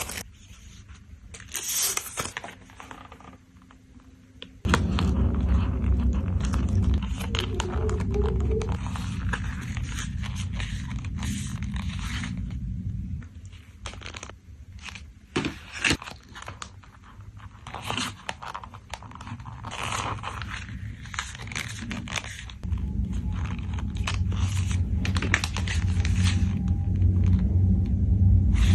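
Photocards being packed by hand: plastic sleeves and wrapping crinkling, scraping and rustling, with scattered taps and clicks. A low steady rumble comes in about five seconds in, drops out around the middle, and returns near the end.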